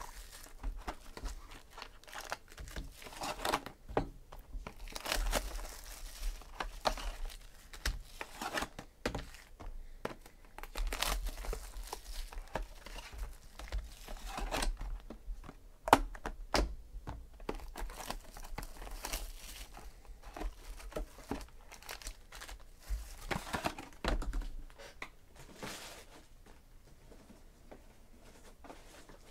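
Plastic shrink-wrap being torn and crinkled off boxes of trading cards, with the boxes handled and opened, and one sharp knock about two-thirds of the way through. The crinkling stops a few seconds before the end.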